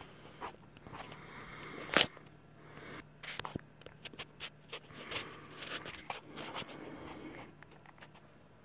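Scattered clicks and rustling, with one sharp click about two seconds in, over a faint steady hum from a running PC's fans and water-cooler pump.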